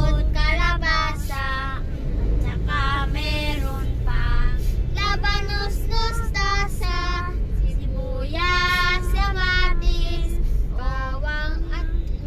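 Girls' voices singing a song in held, gliding phrases inside a car's cabin, over the steady low rumble of the moving car.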